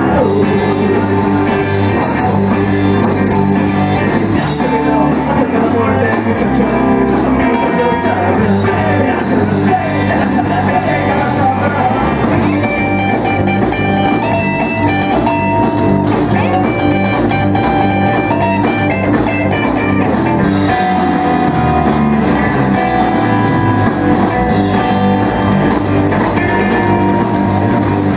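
A rock band playing live: electric guitars over a drum kit, loud and steady, with a melodic guitar line standing out in the middle.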